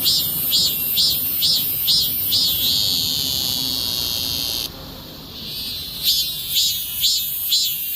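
Cicada singing: high pulses about two a second, running into a steady high buzz that cuts off suddenly just before the halfway point; after a quieter second or so, the pulsing starts again.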